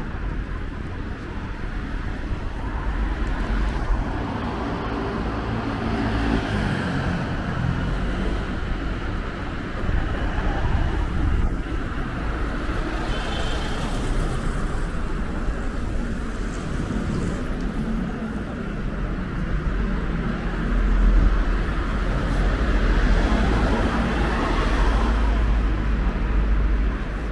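Road traffic on a city street: cars driving past over a steady low rumble of traffic noise, growing louder in the last third.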